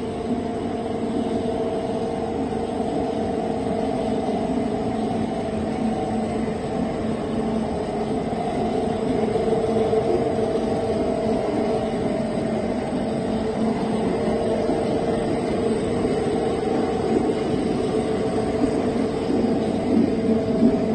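Carbon fiber tape impregnation line running, with a steady machine hum of two held tones over a low rumble.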